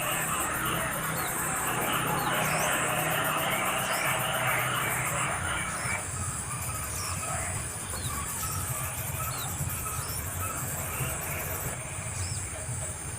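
Outdoor ambience of insects trilling and small birds chirping in short rising notes, over a low steady hum; the chirring is busiest in the first half.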